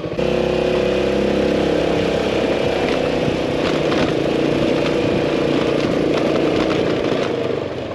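Yamaha maxi-scooter engine running steadily at low speed while riding along a narrow dirt lane.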